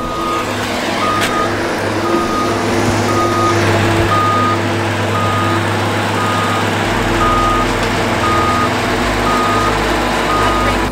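Mobile boat hoist (travel lift) moving with a boat in its slings: its motion alarm beeps about once a second over the steady low drone of its engine running.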